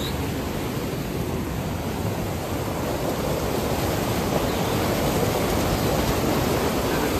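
Monsoon-swollen mountain stream in flood, muddy water rushing and churning over rocks in a steady roar, getting a little louder about halfway through.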